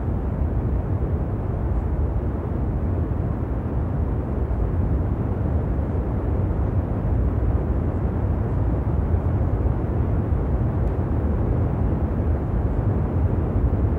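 Jet engines of the North American XB-70 Valkyrie running at full afterburner in flight: a loud, even rumble and rush that holds steady without changing pitch.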